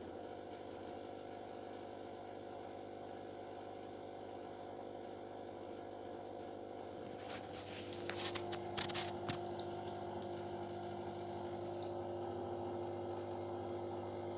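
Samsung WF6450N7W washing machine's drain pump humming steadily. A higher tone joins about seven seconds in, and a burst of crackles follows about a second later. The machine crackles like this but does not drain; the owner suspects water getting into the pump past the impeller so it cannot start, or faulty control electronics.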